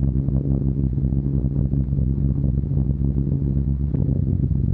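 Steady drone of a Short Stirling heavy bomber's piston engines heard inside the aircraft, a low, even hum of several pitched tones that does not change.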